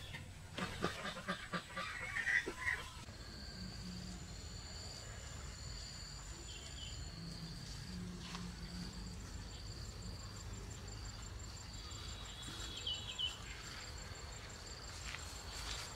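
Metal spoons clicking and scraping as they lift and set down soft dumplings for the first few seconds. Then faint outdoor ambience with a high, short chirp repeating about once a second.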